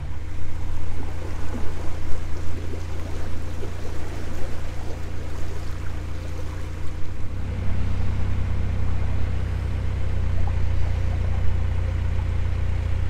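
Narrowboat's engine running steadily under way, a low drone, its tone shifting about seven seconds in.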